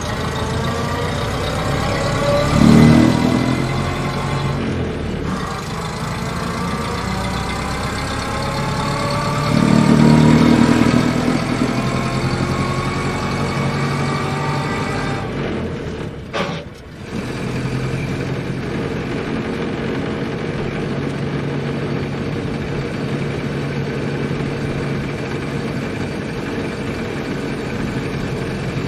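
1928 Ford Model A's four-cylinder flathead engine running as the car is driven. The revs swell up twice, near the start and about a third of the way in, and the engine note briefly drops away a little past halfway before running steadily again.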